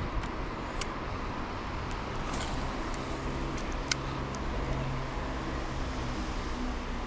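Steady rumble of road traffic crossing the concrete bridge overhead, with a vehicle's engine note rising out of it in the middle. A few short, sharp clicks stand out, the loudest about four seconds in.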